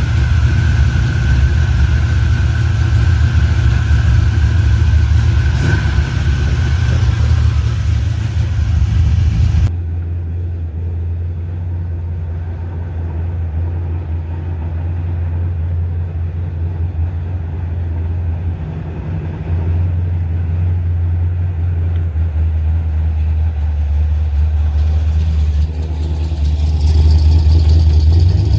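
1986 Chevrolet C10's carbureted 5.7 L 350 V8 running with a steady low rumble. The higher hiss drops away abruptly about ten seconds in, and the engine gets louder near the end.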